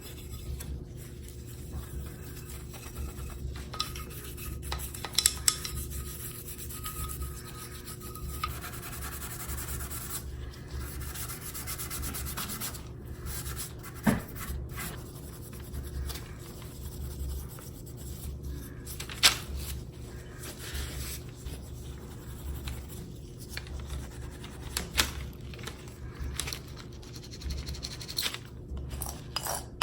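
Steel wool scrubbing back and forth on the metal of a Stanley No. 3 hand plane, with a few sharp knocks in between.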